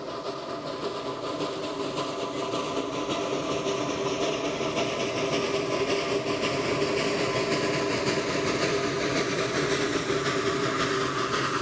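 Train running, with a steady droning tone over rushing noise, growing louder through the first half and then holding steady.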